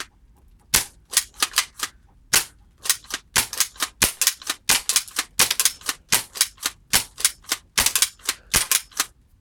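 BB guns firing, a rapid irregular string of sharp snapping shots, about three a second, starting shortly after a brief pause.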